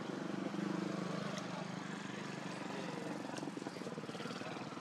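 A motor engine running with a steady hum, loudest about half a second to a second in.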